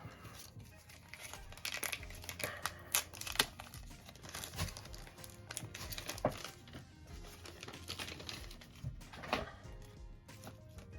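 Small clicks, taps and crinkling as the parts of an opened iPod Classic and its ribbon cable are handled, with quiet background music.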